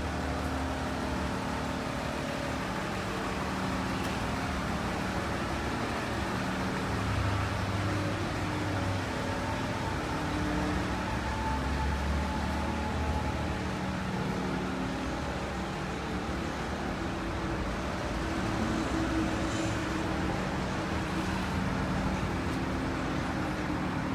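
Steady low hum of running vehicle engines, with several steady pitched tones and a low drone that swells and fades.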